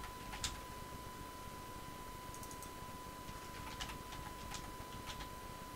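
Computer keyboard being typed on: a few short runs of faint key clicks.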